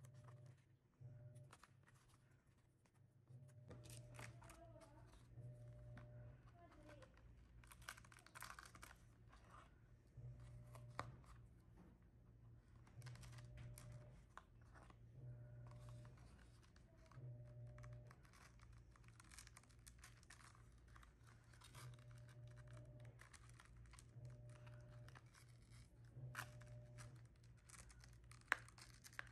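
Faint peeling, crinkling and scratching of paper with scattered light clicks, as the backing is worked off a sticky coloured-sand art sheet.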